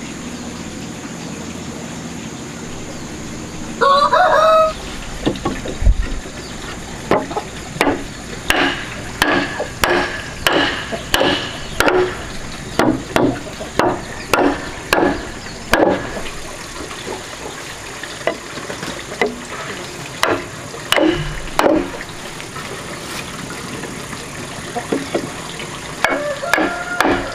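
Wood being knocked, sharp knocks at about two a second for several seconds with short pauses and a few more later, as wooden wall pieces are tapped together into their joints. A chicken calls briefly before the knocking starts and again near the end.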